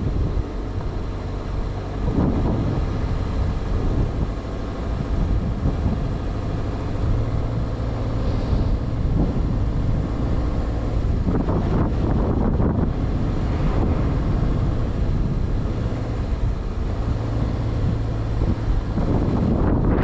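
2020 Subaru Outback driving slowly over rough dirt trails, its engine running steadily with the note shifting now and then. It is heard from outside the car, with some wind on the microphone.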